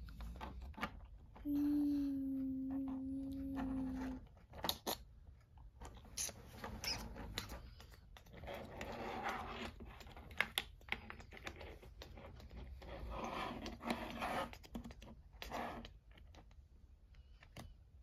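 Small plastic toy construction vehicles clicking, knocking and scraping as they are handled and pushed over a plastic tabletop. A steady low tone sounds for almost three seconds near the start.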